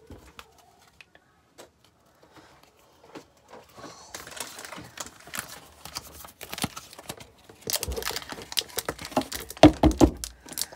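Pokémon booster packs being opened by hand: the foil wrappers crinkle and tear, and the cards rustle and tap. A few faint clicks come first, then from about four seconds in a dense, crackling run of handling noise that is loudest near the end.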